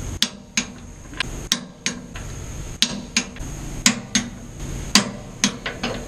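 Wrench work on the sawmill trailer's steel axle mount as its bolts are torqued: about a dozen sharp metallic clicks at uneven intervals, each with a short ring.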